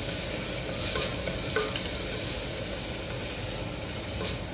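Chopped onions frying in hot oil in a pressure cooker pot, sizzling steadily while a wooden spoon stirs them, with a few short scrapes of the spoon against the metal. The onions are being sautéed until soft.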